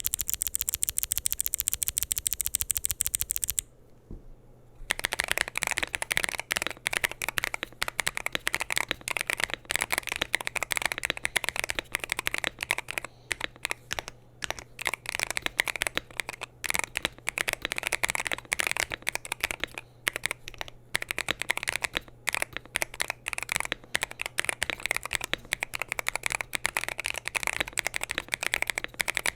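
Typing on a Wooting 80HE mechanical keyboard with lubed Gateron Magnetic Orchid Hall-effect switches, a polycarbonate plate and GMK keycaps in a foam-filled GT-80 case. It opens with a fast, even run of key clicks for about three and a half seconds, pauses briefly, then goes into continuous typing.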